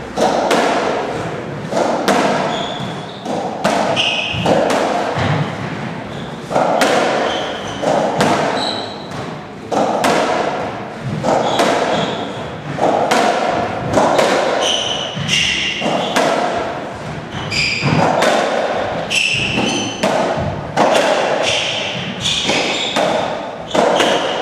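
A racketball rally: the hollow rubber ball is struck by the rackets and hits the walls and floor about once a second, each knock echoing in the enclosed court. Short high squeaks of court shoes on the wooden floor come between the hits.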